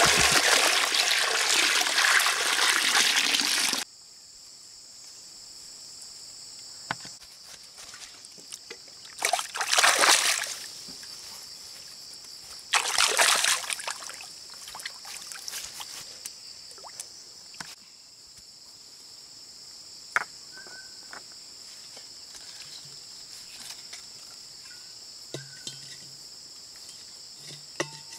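Water poured from a large clay jar into a small cement pond, a loud steady rush that cuts off about four seconds in. Then insects chirring steadily at a high pitch, with two short bouts of splashing as hands work in the pond water around a fish.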